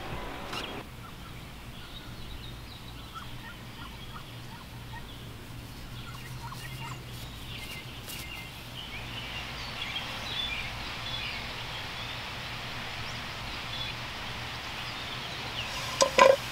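Outdoor ambience of scattered small-bird chirps over a steady low hum. Near the end comes a short, louder clank with a ringing tone as the metal frying pan on the lawn is handled.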